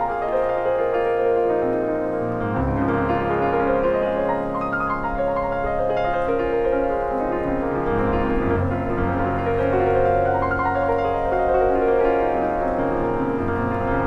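Piano music playing slow, sustained chords, with the bass note changing every few seconds.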